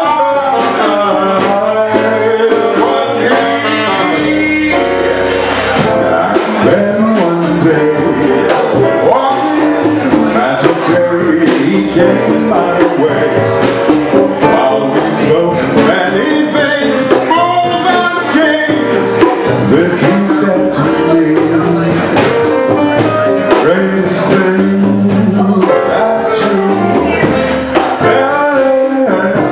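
Live jazz band playing an instrumental passage, with drums keeping a steady beat under a melodic solo.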